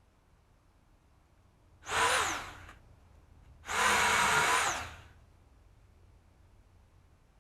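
A small electric power tool's motor run twice in short bursts, each spinning up quickly and winding down with a falling whine.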